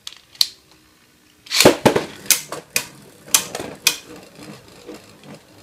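Two Beyblade Burst spinning tops clashing in a plastic stadium: a run of sharp plastic clacks, about half a dozen between one and four seconds in, then a faint steady spinning whir as they circle apart.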